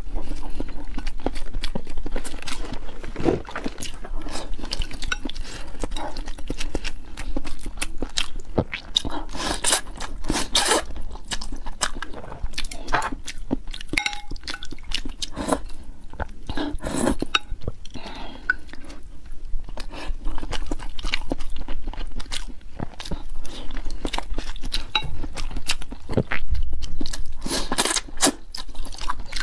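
Close-miked eating sounds: a woman chewing boiled egg and rice noodles with irregular wet mouth clicks and smacks, then slurping wide rice noodles near the end.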